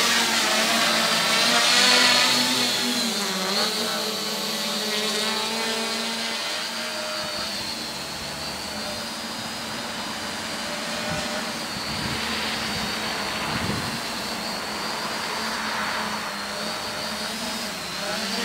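Homebuilt quadcopter's four electric motors and propellers buzzing as it lifts off and flies, the pitch wavering with throttle changes. It is loudest in the first couple of seconds, at lift-off, and then settles into a steady whine.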